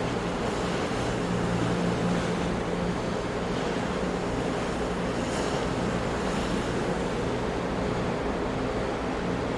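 Ocean waves breaking on rocks: a continuous wash of surf with a low, steady hum underneath.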